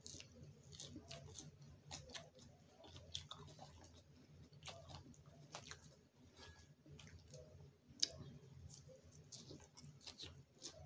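Quiet chewing of a leafy salad with apple, with scattered small clicks of a metal fork against a glass bowl and one sharper click about eight seconds in.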